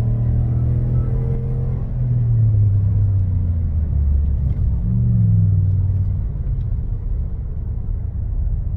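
Inside the cabin of a 2016 Cadillac Escalade, its 6.2-litre V8 drones through a muffler-delete exhaust while driving. The engine note drops in pitch twice, rises briefly, then settles into a low rumble of road and exhaust.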